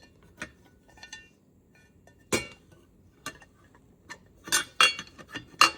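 Sharp clicks and metallic clinks of a keypad deadbolt's interior housing being handled and fitted back onto the door. The loudest come about two seconds in and in a cluster near the end.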